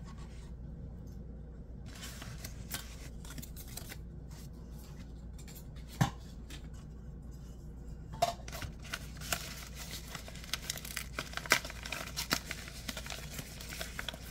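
Hands handling and opening product packaging: scattered small clicks, one sharp click about six seconds in, then a busier run of clicks and taps in the second half.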